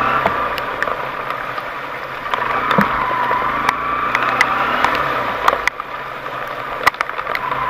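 Off-road 4x4's engine running under load, its pitch rising and falling in slow waves as the revs change, with scattered sharp clicks and knocks over it.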